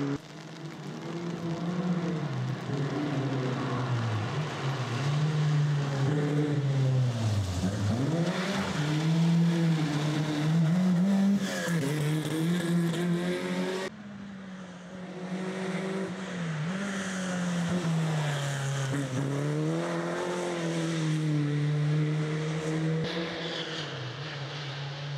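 Rally car engine revving hard, its pitch climbing and dropping again and again as the driver accelerates, shifts and lifts. The sound breaks off abruptly about halfway through and resumes with another run of the engine rising and falling.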